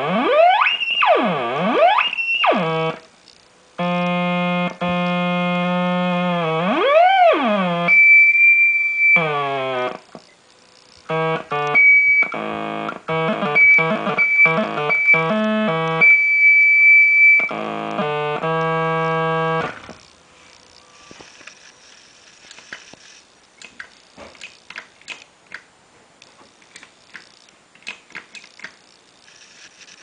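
Homemade joystick-controlled synthesizer playing buzzy electronic tones: pitch swoops up and down at the start, then held notes, a high whistle-like tone and stuttering chopped notes. About twenty seconds in it stops, leaving only faint scattered clicks.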